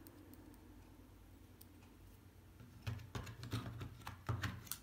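Light clicks and small knocks of a hand handling a small screwdriver and a clear plastic parts box on a table. They come in a quick cluster of taps with a few dull thuds, starting about three seconds in after faint room noise.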